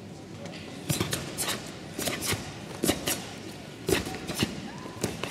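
Karate gi jackets snapping with each fast strike and block as three karateka perform a kata together. About a second in, a series of sharp cracks starts, often in quick pairs because the three are slightly out of step, roughly one or two a second.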